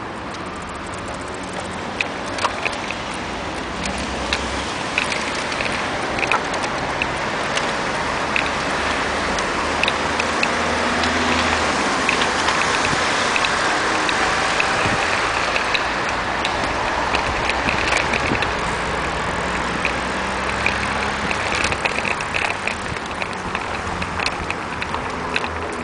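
Wind rushing over the microphone and rolling noise from a bicycle ride, with many short rattling clicks and passing car traffic; the rush swells in the middle and eases again.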